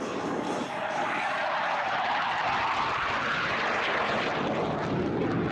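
A BAe Hawk 127 jet trainer's Adour turbofan is heard as the jet flies past overhead in a continuous jet roar. It builds to its loudest in the middle, about two to four seconds in, and stays loud.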